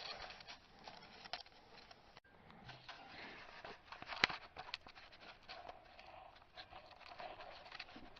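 Faint clicks, taps and light scrapes of hand tools and metal parts being handled under a car, with one sharper click about four seconds in.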